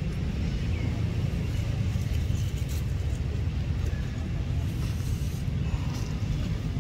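Outdoor ambience dominated by a steady low rumble, with a faint high chirp or two.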